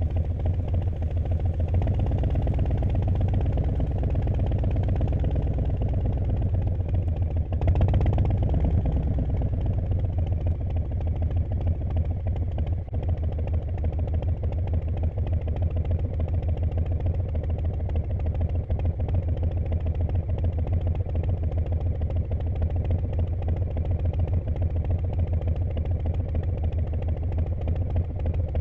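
Harley-Davidson V-twin motorcycle engine running at low revs with a steady, rapid low pulse. It swells slightly in the first several seconds, with a brief louder moment about eight seconds in.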